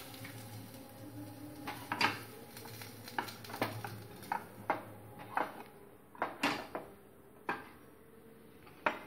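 Plastic spatula scraping and knocking against a nonstick kadai as the cooked potatoes are scooped out. About ten short, irregular knocks and scrapes.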